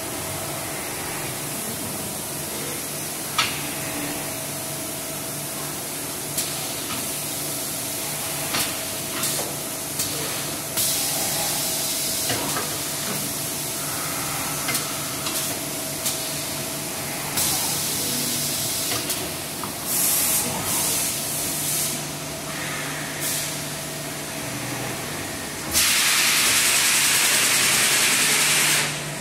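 Automatic CNC lathe line machining aluminium wheel spacers, running with a steady machine hum and scattered clicks. Short bursts of hiss come several times, and a long loud hiss of air or spray near the end is the loudest sound.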